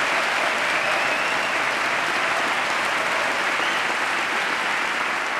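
A large audience of members of Congress applauding steadily.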